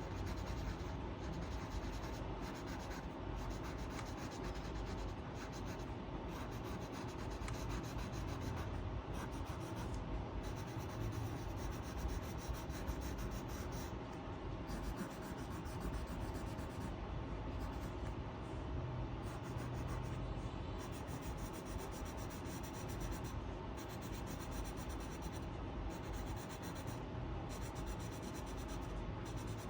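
Colouring on paper: a colouring tip rubbing steadily across the page.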